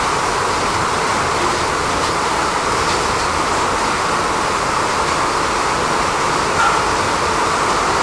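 Steady rushing din inside a pig house full of weaned piglets, with a brief louder sound about six and a half seconds in.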